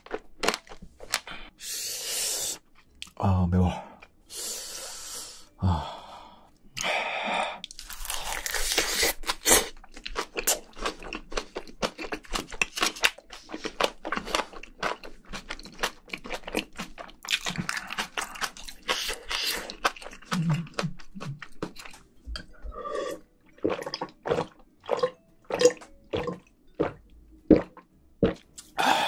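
Close-miked eating sounds of spicy braised seafood with bean sprouts: wet slurps, crunchy chewing and mouth smacks in quick irregular clicks, with a few short low hums. Near the end, swallows of water from a glass.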